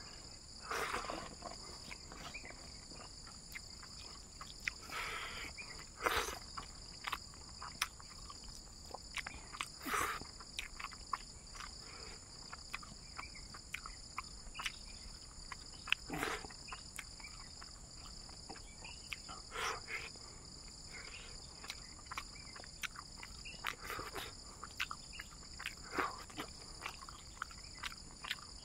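Close-up eating sounds, short irregular chewing clicks and lip smacks while rice and fish are eaten by hand, over a steady high-pitched drone of insects.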